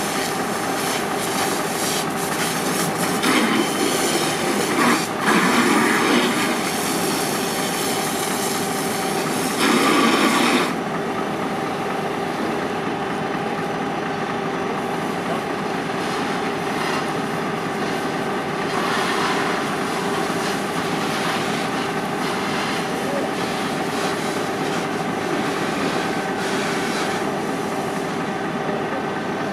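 Fire apparatus running steadily: an engine-driven drone with a hiss of water spray over it. The noise swells a few seconds in and again near ten seconds, and the hiss cuts off soon after.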